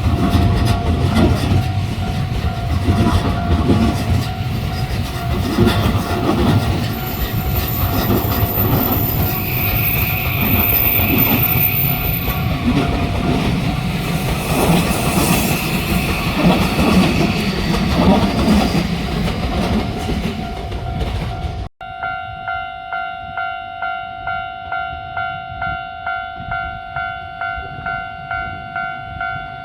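A train passing over a level crossing on the JR Narita Line: wheels rumbling and clattering on the rails, with the crossing's warning bell ringing underneath and a high steady tone for several seconds in the middle. After an abrupt cut about two-thirds of the way in, the electronic crossing bell rings alone, dinging evenly about twice a second.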